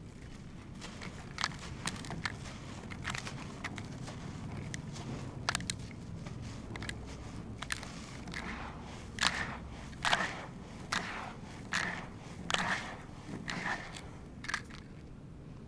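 Chunks of cement floor being crumbled: a string of sharp, irregular crunches. They are sparse at first and come louder and closer together in the second half.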